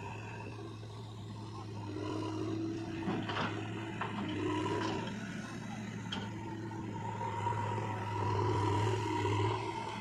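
Diesel engines of a JCB 3DX backhoe loader and a Swaraj 742 XT tractor running steadily, the loader working under load as it lifts soil over the trolley. There are a few short knocks and rattles in the middle as soil goes into the trolley, and the engine grows louder near the end.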